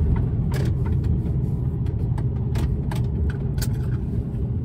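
Diesel engine and road noise of an HGV tractor unit heard from inside its cab as it rolls slowly into a lorry park: a steady low rumble, with a few scattered clicks and rattles from the cab.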